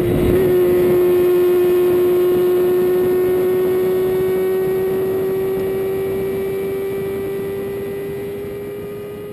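Supercharged, methanol-fed 1988 Honda CBR250R four-cylinder engine running at high revs, its steady note slowly climbing in pitch as the bike gains speed, growing fainter toward the end.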